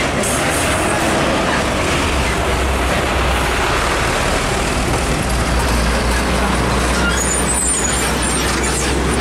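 Heavy diesel tractor-trailer trucks passing close by: a steady loud roar of engines and tyres, with a few brief high squeaks about three-quarters of the way through.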